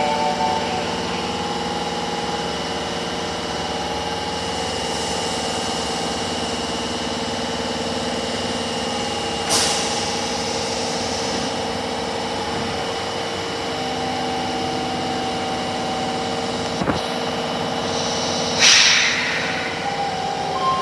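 Osaka Metro Tanimachi Line 22 series subway car standing with a steady electrical hum from its equipment, cut twice by a short hiss of released air: once about halfway through and again near the end.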